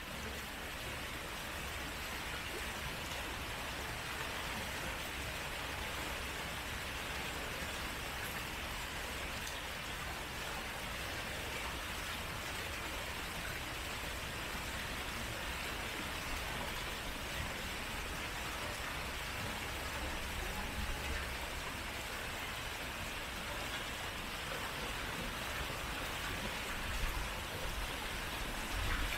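Steady hiss of splashing water, with a low rumble underneath.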